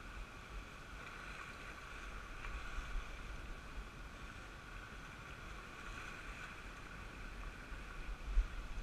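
Steady, muffled wind and surf noise, with wind rumbling on the microphone and a sharp bump near the end.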